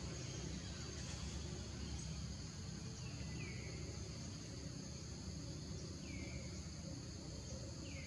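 Forest ambience: a steady high insect drone over a low rumble, with a bird giving a few short falling chirps about three seconds in, around six seconds and near the end.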